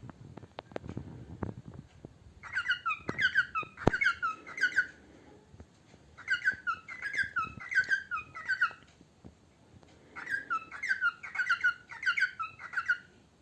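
Male cockatiel singing: three bouts of rapid, repeated chirping notes, with a few sharp clicks in the first seconds and one at about four seconds.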